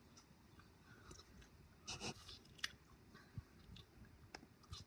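Near silence, with a few faint clicks and soft rustles.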